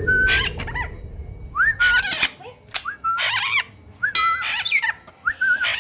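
Red-lored amazon parrot calling, five similar calls about a second and a half apart, each a rising whistle that goes into a wavering note.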